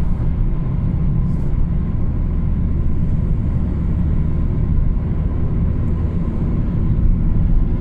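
A vehicle driving along a road: a steady low rumble of engine and road noise with no change in pace.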